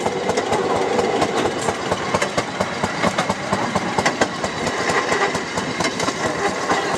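Fairmont railroad speeder underway: its engine running while the car rattles along the track with a rapid, uneven run of clicks.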